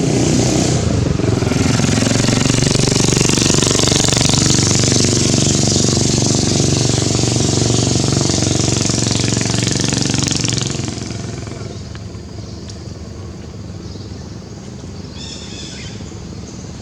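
A vehicle engine running loudly close by, falling away about eleven seconds in to a quieter background.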